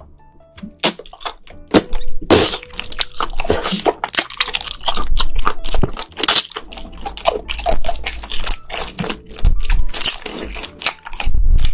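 Close-miked wet slurping, sucking and smacking as raw octopus tentacles are drawn into the mouth and chewed. Quick irregular wet clicks and pops start about a second in and run densely on.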